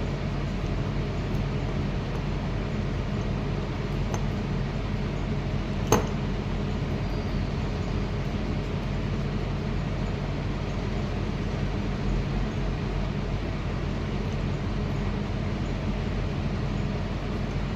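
Steady background hum and noise, with one sharp click about six seconds in.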